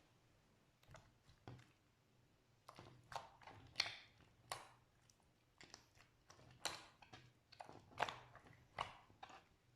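Slime being squished and pressed by hand, giving irregular sticky clicks and pops about once or twice a second.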